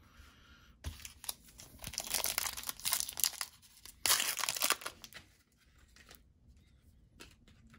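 Foil wrapper of a Panini Contenders hockey card pack being crinkled and torn open by hand, with the loudest rip about four seconds in, then quieter crinkling of the opened foil.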